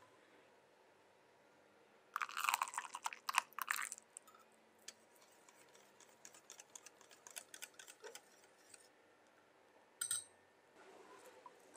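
Kitchen prep sounds from a wire whisk working batter in a glass bowl: a loud burst of rapid clicking and scraping about two seconds in, then lighter scattered ticks of the whisk against the glass. Near the end there is a short loud clatter, followed by a soft steady rush as liquid batter pours.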